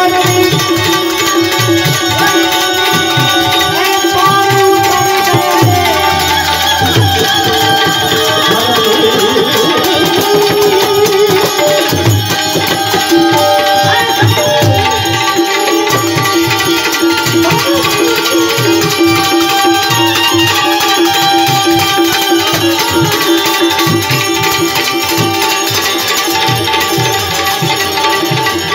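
Instrumental Indian devotional music: an Indian banjo (benjo, the keyed bulbul tarang) plays a held, ringing melody over a steady rhythm of tabla, with manjira hand cymbals keeping time.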